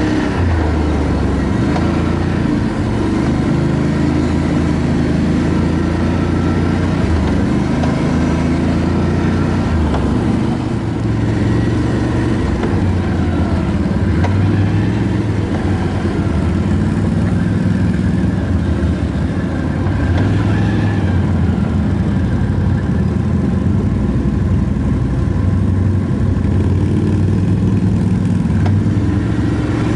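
ATV engine running under way, its pitch stepping up and down with the throttle.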